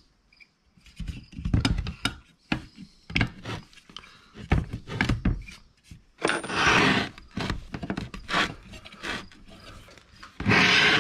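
Knocks and clunks of a metal twin air compressor and its cover being handled on a workbench, with a longer scraping rush about six seconds in and again near the end.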